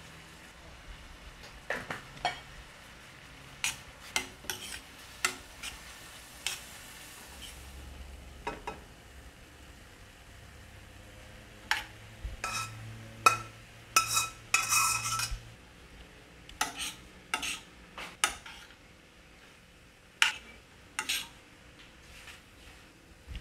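A metal spoon scraping and knocking against a stainless steel frying pan while stirring, in irregular sharp clinks. About halfway through comes a quick run of louder clanks with a brief metallic ring, as food is scraped from one pan into the other.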